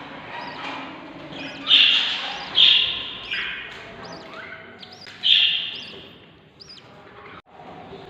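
Budgie chicks in the nest box calling to be fed: three loud, harsh cheeps about two, three and five seconds in, with fainter squeaky peeps between.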